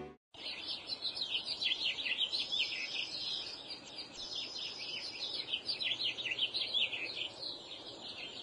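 Many small birds chirping in a dense, continuous chatter of short high chirps over a faint even hiss.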